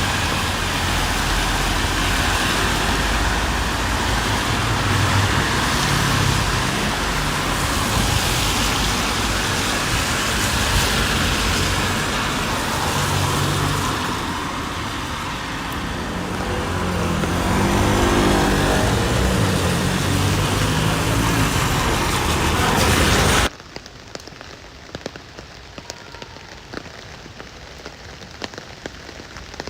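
Rain and road traffic on a wet street: a steady hiss with the low rumble of vehicles and a vehicle engine passing about two-thirds of the way through. Near the end it cuts abruptly to much quieter rain, with single drops ticking on a surface.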